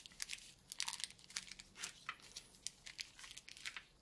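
Packaging crinkling and crackling as it is handled and pulled apart, in a quick run of irregular sharp crackles.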